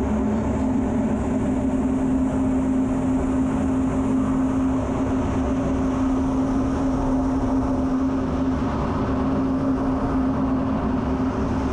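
Steady jet engine and airflow noise inside an F-16 cockpit in flight, with a constant low humming tone running under it.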